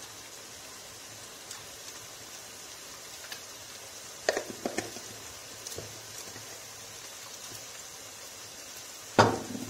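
Sliced onions and ground meat frying in a small frying pan with a steady sizzling hiss, a few crackles about four seconds in and a louder sharp knock near the end.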